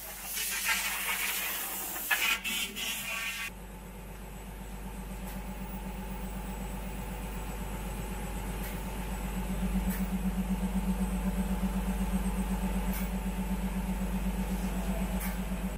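Powder-coating spray booth running: a steady motor hum with a pulsing low drone from the booth's fan and powder-gun equipment. For the first three seconds or so it sits under a loud hiss of air, which cuts off abruptly.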